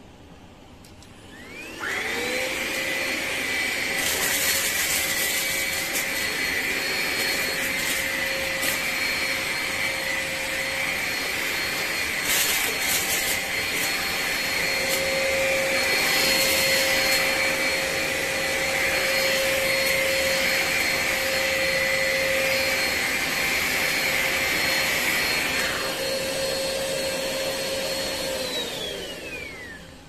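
Hoover ONEPWR cordless stick vacuum switched on, its motor whining up to speed within about two seconds, then running steadily with a high whine and a few brief rattles of debris being picked up. Near the end it is switched off and winds down with a falling pitch.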